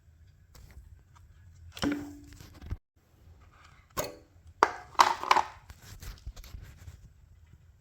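A series of knocks and clatters: one near two seconds in with a short ringing tone, then a loud cluster about five seconds in, and fainter ticks after it.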